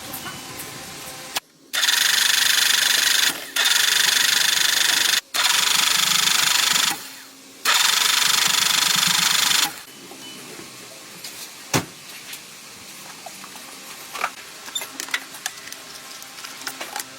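A power tool running in four loud bursts of a few seconds each, a steady high hiss that stops sharply between bursts. After that, much quieter light clicks and taps.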